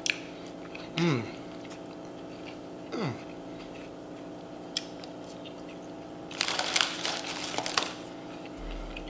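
Foil Doritos chip bag crinkling as a hand reaches in for a chip, a dense rustle of about a second and a half near the end. Earlier there is soft eating with two short hummed vocal sounds.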